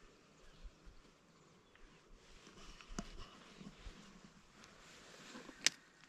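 Faint rustling and crackling of dry twigs, grass and needles on the forest floor as dogs sniff about and someone walks. A sharp click comes about three seconds in and a louder one near the end.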